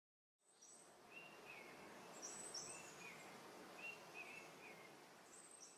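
Faint outdoor nature ambience: a steady hiss with small birds chirping, short quick notes that come in twos and threes, some higher and thinner than others.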